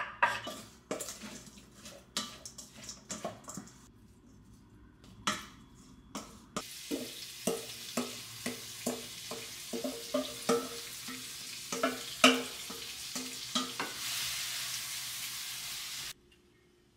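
A wooden spoon knocking and scraping in a nonstick pan of shrimp and vegetables, first in scattered taps, then about twice a second over a steady sizzle of frying that starts about six seconds in. The sizzle grows louder near the end, then cuts off suddenly.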